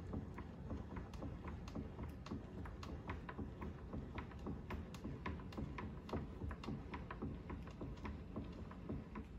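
Benchtop milling machine table being cranked slowly along by its handwheel, giving a run of light, uneven clicks, about three to five a second, over a low steady hum, while a dial test indicator is run along the vise.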